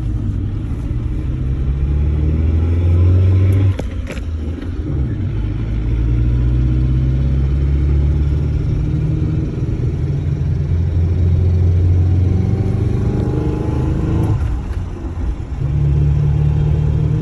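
Suzuki Sidekick driving in four-wheel-drive high with both front hubs unlocked, engine and drivetrain rising in pitch as it speeds up, dropping suddenly about four seconds in and again near the end. The drivetrain is making the strange noise the owner is investigating, with the hubs disengaged.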